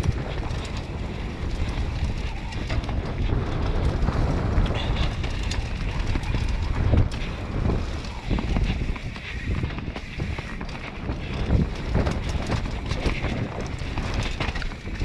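Mountain bike descending a rough dirt forest trail at speed: tyres rumbling over dirt and roots, with frequent clacks and rattles from the bike over bumps, and wind buffeting the microphone.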